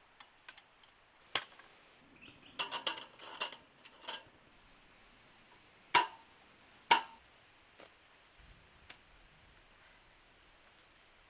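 Irregular sharp knocks and clicks of hard objects striking: a quick run of taps, then two loud strikes about a second apart, with a few faint ticks after.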